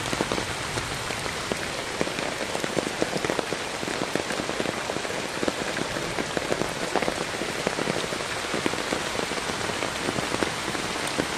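Heavy rain pouring onto fast-flowing muddy runoff and wet ground: a dense, steady hiss with many close drop splashes ticking through it.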